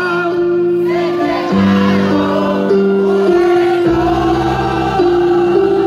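Live band music played loud over a concert sound system, with held notes stepping through a slow melody and many voices singing along.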